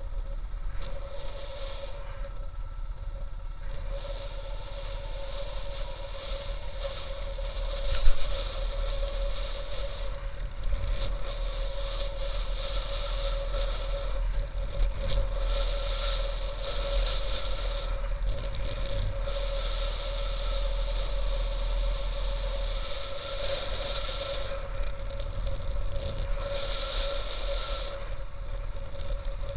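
Motorcycle engine running steadily with one held tone, under a heavy low wind rumble on a helmet-mounted camera. A single sharp knock about eight seconds in.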